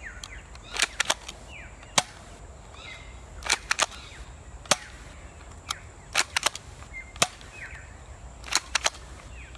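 Toy Mauser C96 replica pistol being cocked and fired over and over: each time a quick cluster of clicks, then about a second later a single sharp snap as a rubber bullet is shot, four times.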